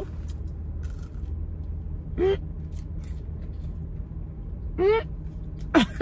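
Steady low rumble of a car running, heard inside the cabin. Over it a woman eating makes two short rising vocal sounds, about two and five seconds in.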